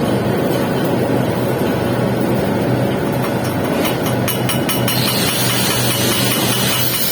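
Arc welding the capping pass on a pipe joint: a steady, loud arc noise over a low hum from the welding equipment, with a few brief clicks near the middle.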